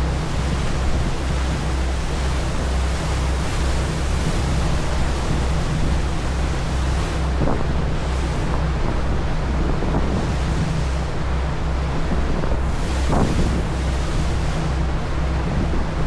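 Passenger ferry under way: the rush of its churning stern wake and wind buffeting the microphone, over a low engine drone with an even throb.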